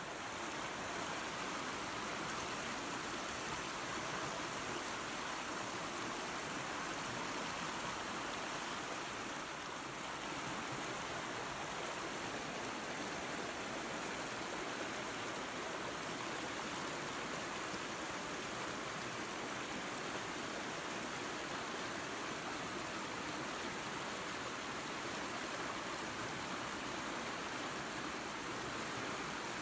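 Small waterfall and creek: water splashing and rushing over rocks in a steady, even hiss.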